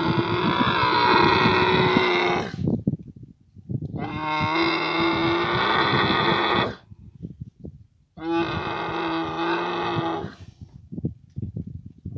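Dromedary camels mating, giving three long, harsh calls of two to three seconds each, with short, irregular low pulses in the gaps between them.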